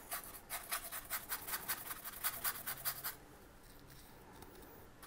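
A small paintbrush scrubbing brown acrylic paint onto a rough polystyrene foam sheet in quick, even strokes, about six or seven a second. The scratching stops about three seconds in.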